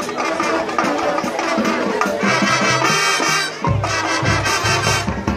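Marching band playing on the field, brass and drums together, with a short break about three and a half seconds in followed by low drum hits.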